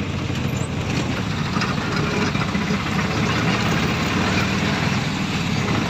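A heavy engine running steadily at idle.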